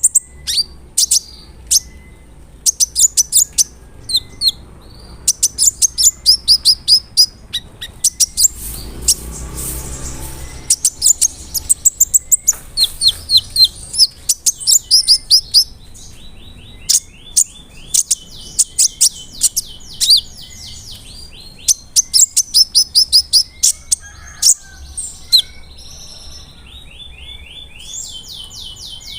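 Kolibri ninja sunbird singing loudly: rapid bursts of sharp, very high chirps and sweeping notes, broken by long buzzy trills in the second half. The song is packed with copied phrases of other birds.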